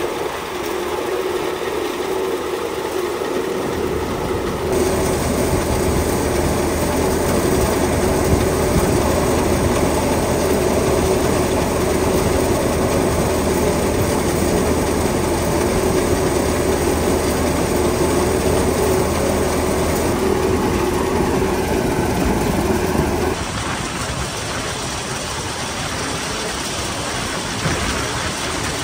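Tractor engine steadily driving a Kamdhenu thresher during chickpea threshing: a steady mechanical hum with a strong low drone. The sound changes abruptly a few times, and the low drone drops out about three-quarters of the way through.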